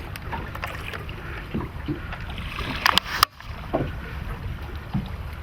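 Steady wind and water noise around a small fishing boat on the bay, with a few sharp clicks about three seconds in.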